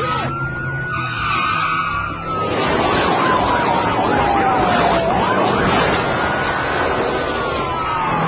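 Police siren wailing in long slow sweeps, each falling in pitch over a few seconds and then jumping back up, over loud engine and road noise of a car at high speed that swells about two seconds in.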